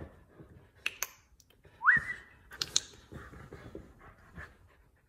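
Husky pawing and scratching at a cushioned dog bed: scuffles and soft thumps with a few sharp clicks. The loudest moment, about two seconds in, is a short high squeak that rises in pitch and holds briefly.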